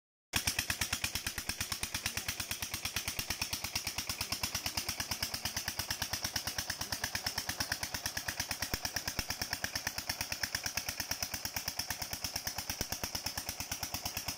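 Single-cylinder diesel engine running steadily with an even, rapid chug as it drives a belt-driven irrigation water pump under load.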